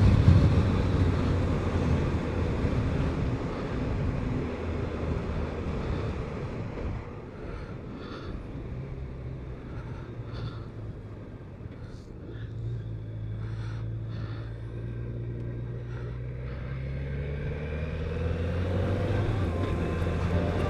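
BMW K1200RS inline-four engine running under way, heard from the rider's helmet camera together with wind noise. The sound grows quieter over the first several seconds, then the engine note climbs in pitch and gets louder toward the end as the bike picks up speed.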